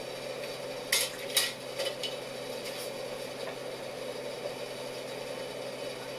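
A utensil clinking against a pot or dish: two sharp clinks about a second in, then two or three lighter ones, over a steady hum.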